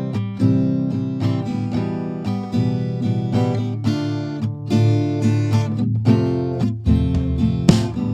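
Background music led by strummed and plucked acoustic guitar, with a steady rhythm of picked notes.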